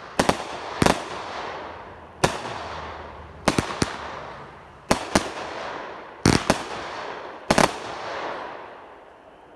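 AFW Spring Lightning 25-shot, 200-gram consumer fireworks cake firing gold willow shells. It gives sharp bangs about once a second, some in quick pairs, and each trails off in a fading hiss. The last shot comes well before the end.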